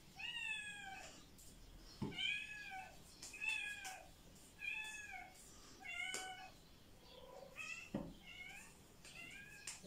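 A cat meowing over and over, short arched calls about once a second. A few sharp knocks come in between.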